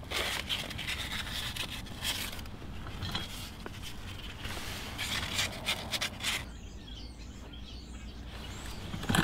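Sandpaper rubbing back and forth on the tiller's steel axle shaft, cleaning grime and pitting off where the axle seal rides. The scraping comes in two spells, for the first couple of seconds and again about five seconds in, and is quieter after.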